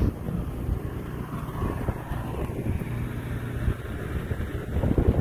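Wind rumbling and fluttering on the microphone, over a low steady hum.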